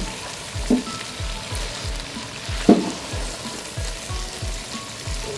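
Shredded cabbage sizzling in hot oil and masala in a pot as it is stirred in with a wooden spoon, with two knocks of the spoon against the pot, about a second in and near three seconds. Background music with a steady low beat runs underneath.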